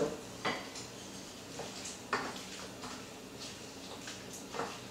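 A few scattered light knocks and scrapes of a wooden spoon working in a stainless steel sauté pan of simmering chicken stew, over a low steady background.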